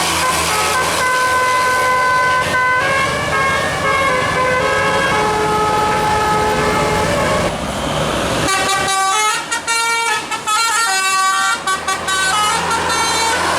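Bus 'telolet' horn, a multi-trumpet musical air horn, playing a tune in held notes over the running bus. From about eight seconds in it switches to a quicker run of short notes with brief breaks.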